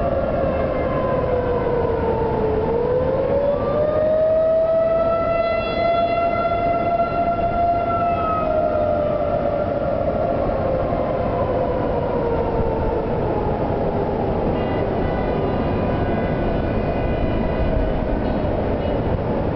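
Outdoor tornado warning siren wailing: its pitch falls, rises again about three seconds in and holds, then slowly sinks over the following several seconds. A second, higher set of tones joins in near the end.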